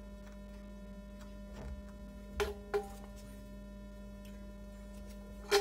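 A steady low hum with a few sharp metallic clinks that ring briefly: two close together a little over two seconds in and a louder one near the end, as the stainless-steel column of a Hitachi S800 scanning electron microscope is gripped and handled.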